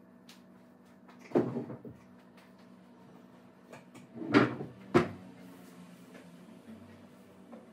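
Knocks and clatter of dishes being put away in a kitchen: one about a second and a half in, then two sharper knocks close together around four and five seconds in, over a low steady hum.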